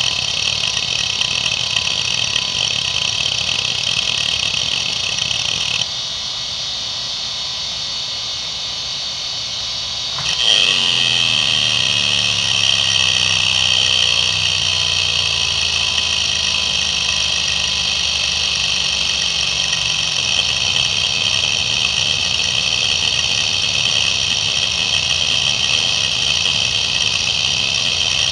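IBM Travelstar DHAA-2405 2.5-inch hard drive seeking continuously under a seek-test program, a dense steady chatter. It drops to a quieter run of the drive for about four seconds, then at about ten seconds the seeking comes back louder and holds steady.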